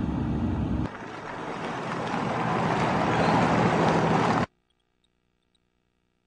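A car's engine running steadily with a low rumble, as heard inside the cabin. About a second in, this gives way to a car approaching along a dirt road, growing louder until it cuts off suddenly near the end.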